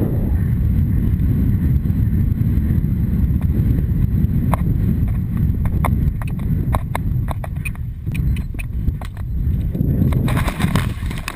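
Wind rumbling on a helmet camera's microphone as an event horse gallops cross-country, with scattered sharp clicks from about halfway. Near the end the horse splashes into a water jump.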